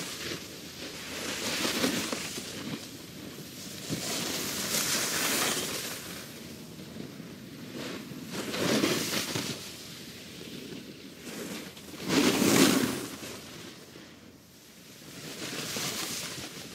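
Skiers carving past on a ski slope: each pass is a swelling, fading hiss of edges scraping snow. There are about five passes a few seconds apart, and the loudest comes about twelve seconds in.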